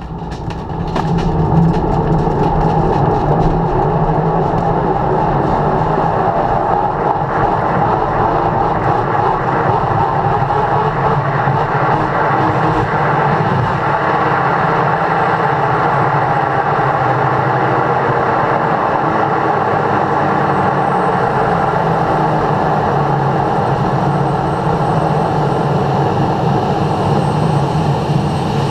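Aerotow launch heard from inside a glider cockpit: the tow plane's engine at full power ahead, with air rushing over the canopy, building quickly in the first two seconds and then holding steady. Rattles and bumps from the glider rolling over grass come through in the first few seconds.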